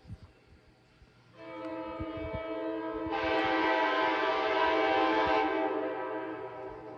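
1994 Graham-White-rebuilt Leslie K5LA five-chime locomotive air horn honking one long steady chord. It sounds about a second and a half in, swells louder and brighter about three seconds in, and dies away near the end.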